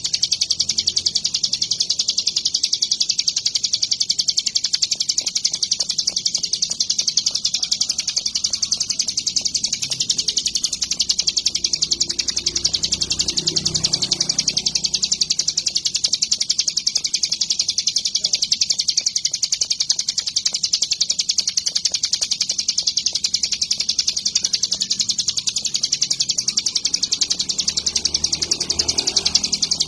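Ciblek gunung (a prinia) singing in full voice: a high, very rapid trill that runs on without a break at an even level.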